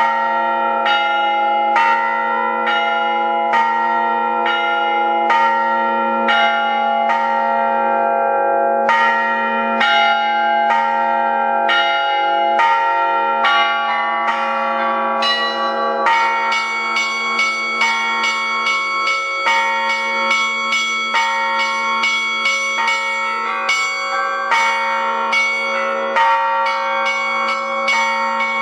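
Russian Orthodox bell ringing on thin-walled bells together with bila, struck metal bars. Strikes come about one and a half a second over a sustained low ringing hum. About sixteen seconds in, the strikes come much faster and the sound grows brighter.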